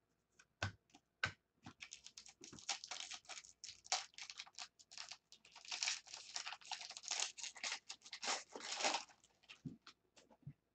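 Foil wrapper of a trading-card pack being torn open and crinkled: two sharp knocks about a second in, then dense crackling rustle that fades near the end.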